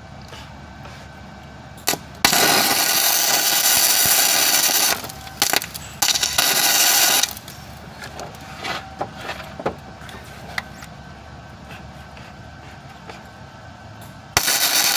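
Flux-core wire-feed welder arc crackling in bursts: one of nearly three seconds starting about two seconds in, a shorter one around six seconds, and another starting near the end. This is weld being built up on broken bolt stubs so they can be turned out.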